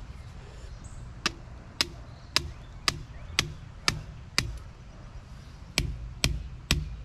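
A small sledgehammer striking the top of a garden stake, driving it into the soil. There are ten sharp blows at about two a second, with a short pause after the seventh.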